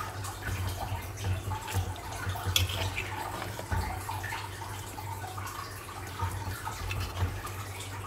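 Water trickling and dripping, with a few light clinks over a steady low hum.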